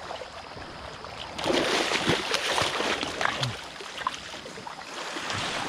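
Water splashing in the shallows over a pebble bottom as a striped bass is landed. There is a louder spell of splashing about a second and a half in, lasting about two seconds, over a steady wash of water.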